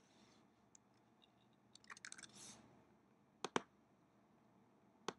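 Faint computer keyboard typing, a short run of keystrokes about two seconds in, then two pairs of sharp clicks, one about a second later and one near the end.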